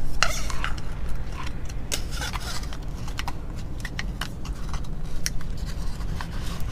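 A plastic zip tie being threaded and pulled tight around a carbon fiber fork guard on a motorcycle fork: scattered sharp clicks and short rubbing scrapes, over a steady low rumble.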